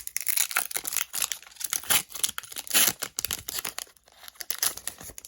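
Foil wrapper of a Pokémon TCG booster pack crinkling and tearing in the hands, a dense run of crackles with short lulls a little after three and again about four seconds in.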